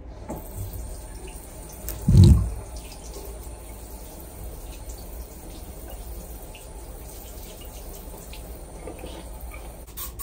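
Water splashing and sloshing in a plastic basin as hands work in it, with one dull thump about two seconds in.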